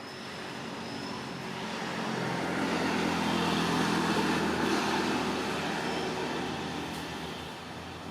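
A motor vehicle passing by: its engine and tyre noise swell over a few seconds, peak near the middle and fade away again.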